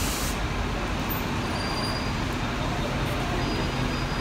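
Volvo B8L double-decker bus's six-cylinder diesel engine running steadily as the bus pulls away from a stop, with a short air-brake hiss right at the start.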